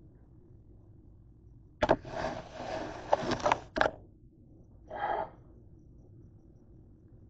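Handling noises on a kitchen counter: a sharp knock, then about two seconds of scraping and rubbing with several clicks, another knock, and a shorter rustle about a second later, as the plate of fries and the condiment bottle are moved into place.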